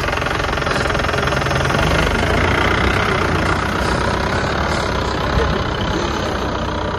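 Mahindra Bolero's diesel engine idling steadily.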